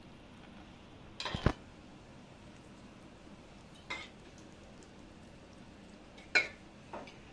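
Metal utensils knocking against the steel dhokla tray as tempering is spooned on: a short clatter about a second in, then single lighter clinks near the middle and twice near the end.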